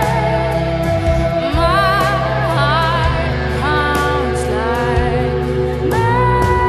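Live rock band with a female lead singer: she sings long, wavering notes over the band's steady held chords, bass and drums with cymbal hits.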